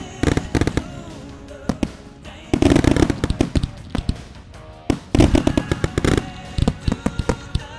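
Fireworks going off in rapid volleys of cracks and bangs over the display's music. The two densest barrages come about two and a half seconds in and again at about five seconds in.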